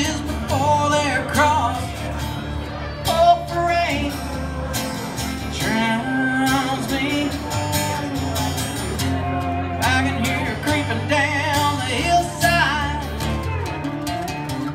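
Live country music on acoustic guitar and pedal steel guitar, the pedal steel playing gliding, wavering lines over the strummed guitar.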